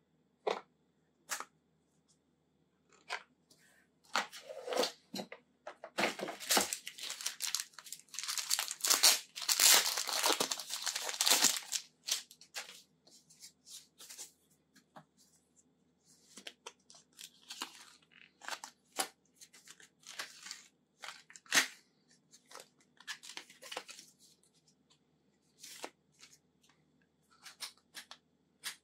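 Product packaging being opened by hand: several seconds of tearing and crinkling a few seconds in, then scattered clicks, taps and short rustles as the contents are handled.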